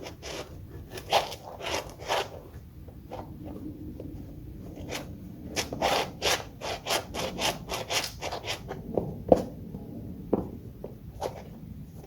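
Shoes stepping and scuffing on a hardwood floor: an uneven run of footfalls and sole scrapes, thickest between about five and nine seconds in.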